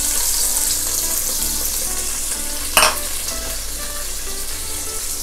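Chopped onion sizzling in hot oil in a pot, a steady hiss, with one short knock a little over halfway through.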